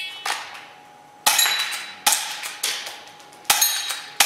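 BBs from an airsoft pistol striking round steel target plates: a string of about six sharp metallic clangs, roughly half a second to a second apart, each ringing briefly, with the pistol's shots among them.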